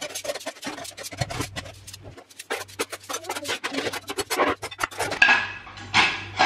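Dishes and cutlery clinking and clattering in a rapid, irregular series of knocks.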